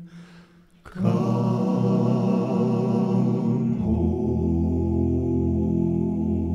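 Gospel vocal group singing the closing phrase of a hymn in harmony. After a brief dip at the start, a long held chord comes in about a second in and gains a lower bass note about three seconds later.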